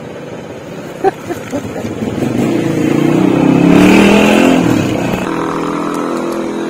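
A motor vehicle drives past. Its engine note rises in pitch and grows louder to a peak around the middle, then drops away into a steadier engine hum near the end. A single sharp click comes about a second in.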